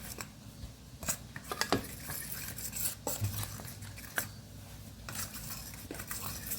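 A fork stirring seasoned flour in a bowl, clinking and scraping against the bowl in irregular taps.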